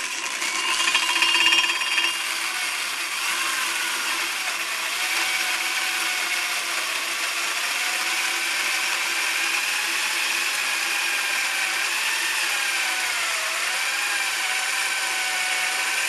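Electric drill spinning a hard-maple grinding head studded with screws inside a metal electrical-conduit pipe, grinding crushed eggshells toward powder. It starts suddenly, is loudest in the first couple of seconds, then runs steadily with the whine's pitch wavering up and down.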